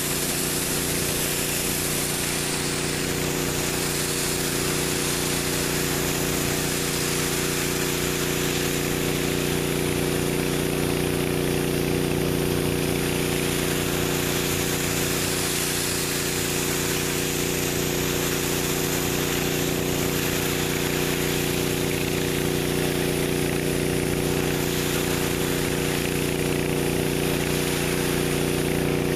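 Four-jet pressure-wash water broom spraying a concrete sidewalk: a steady hiss of high-pressure water jets over the pressure washer's engine running at a constant speed.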